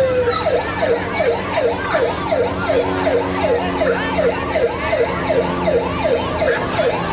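Electronic emergency-vehicle siren: a falling wail that switches about half a second in to a fast yelp, about three rising-and-falling sweeps a second.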